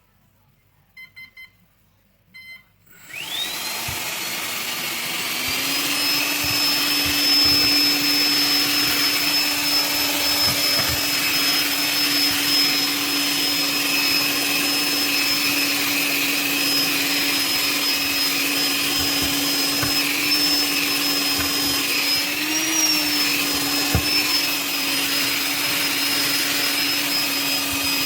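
A few short electronic beeps, then about 3 s in a cordless stick vacuum cleaner refitted with a brushless motor and ESC spins up, its whine rising in pitch for a couple of seconds, and then runs steadily at full speed with a high whine over a lower hum.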